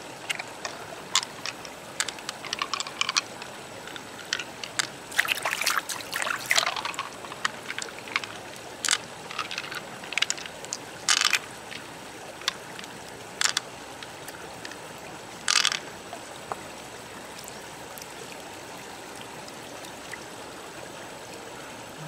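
Wet squelching and sharp clicks from fingers working through the soft flesh of a large opened pearl mussel, over the steady trickle of shallow stream water. The handling sounds come in scattered clusters and die away near the end, leaving only the water.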